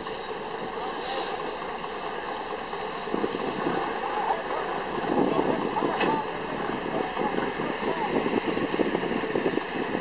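Steam traction engine running at the sawmill, its exhaust beating rapidly and steadily, with a short hiss of steam about a second in and a sharp click about six seconds in.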